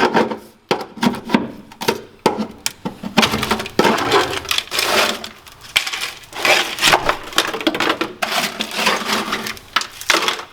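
Dry-ice-frozen factory sound deadener being chipped and scraped off a car's sheet-metal floor pan: irregular cracks and knocks with scraping as brittle pieces break loose, in quick bursts with short pauses.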